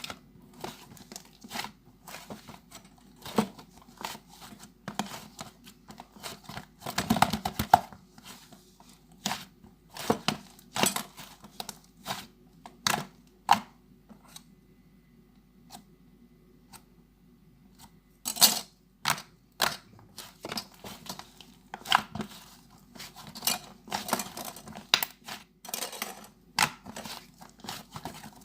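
Close handling noises: irregular crisp crackles, clicks and tearing sounds, with a quieter stretch of a few seconds near the middle.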